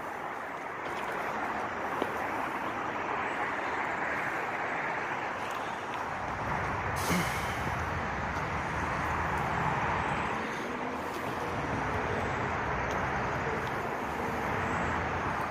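Steady outdoor road-traffic noise from passing vehicles. A heavier vehicle's low rumble builds from about six seconds in, and a short hiss comes about seven seconds in.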